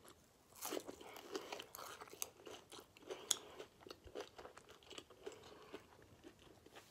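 A person chewing a bite of crispy hash brown with the mouth closed: faint, irregular crunches and small mouth clicks.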